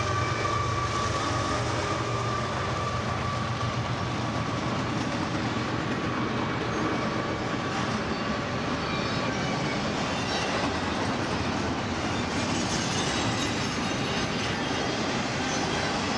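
BNSF freight train passing at speed: a steady, loud rumble and clatter of wheels on the rails. A low engine hum is heard in the first few seconds, and a thin high tone fades out over the first several seconds.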